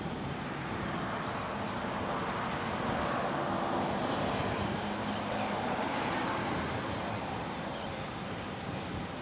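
Steady outdoor noise with a low engine hum, swelling a little through the middle and easing off near the end.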